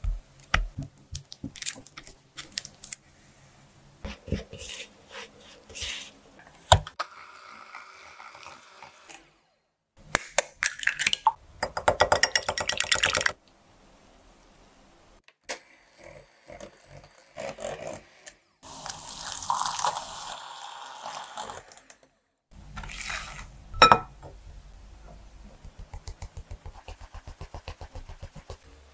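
Close-up baking sounds around a glass mixing bowl: softened butter, beaten egg and flour going in and being worked. They come as scattered clicks and knocks, a fast rattle before the middle, a hiss after it, one sharp knock, and then a steady light ticking near the end.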